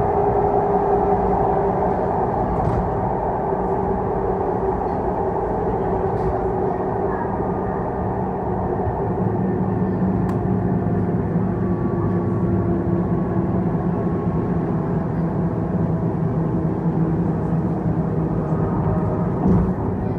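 ED4M electric multiple unit running along the track: a steady rumble of wheels on rail with a humming whine that holds a fairly even pitch, and a few faint ticks.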